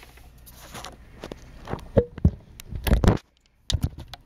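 Hands handling a plastic toy fire truck: scattered light clicks and knocks of plastic, with a cluster of louder knocks about three seconds in. The sound cuts out completely for about half a second just after.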